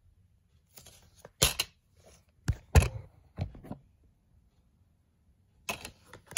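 Plastic DVD case being handled, opened and snapped shut: a series of sharp plastic clicks and clacks, the loudest nearly three seconds in, with another cluster near the end.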